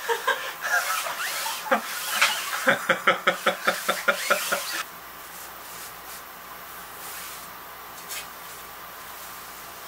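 A man laughing in quick, rapid pulses of 'ha-ha-ha' for the first few seconds. The laughter stops suddenly and gives way to a quiet, steady room hiss.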